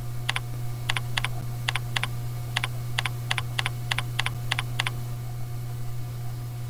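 Computer keyboard typing: about a dozen quick keystroke clicks at an uneven pace, stopping about five seconds in, over a steady low hum.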